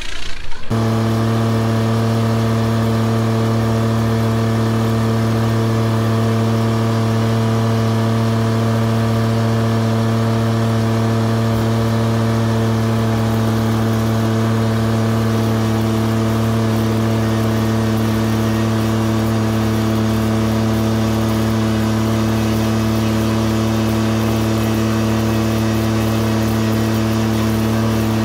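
Engine of a small orange tractor running at a constant speed as it drives, a steady hum that never changes pitch. It cuts in abruptly about a second in.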